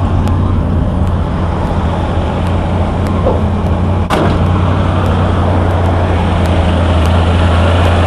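Old Ford F600 truck's carbureted gasoline engine idling steadily from a cold start, held on a partly set manual choke, with a slight shake that is typical of the still-cold motor. A single sharp knock sounds about four seconds in.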